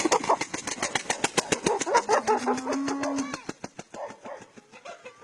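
A small engine started up, firing in rapid even beats of about eight a second, then dying away after about four seconds.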